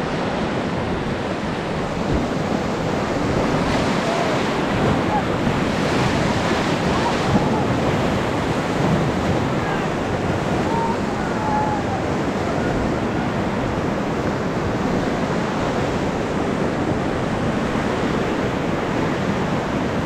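Steady rushing of churning whitewater as an inflatable raft runs a river rapid, with wind buffeting the microphone.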